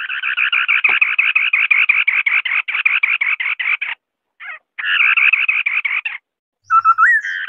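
White-browed scimitar-babbler giving a fast, rattling chatter of evenly repeated notes, about six a second, in two long runs with a short break between them. Near the end a brief call with a rising slur breaks in.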